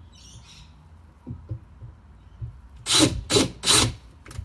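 Power drill with a small bit run in three short bursts, about a third of a second apart, near the end, boring pilot holes for hinge screws into a wooden cabinet. A few light knocks come before them.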